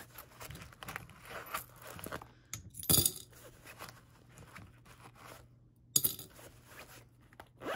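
Loose coins jingling as they are gathered from a wallet's zippered coin pocket, with two sharp clinks, about three seconds in and about six seconds in, as handfuls of coins drop into a glass mason jar that already holds coins.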